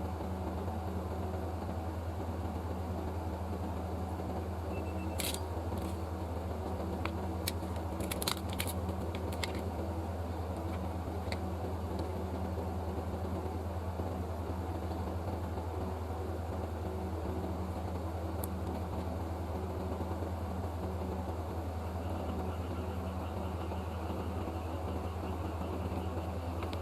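Steady low hum, with a few light clicks and ticks about five to ten seconds in and once more shortly after.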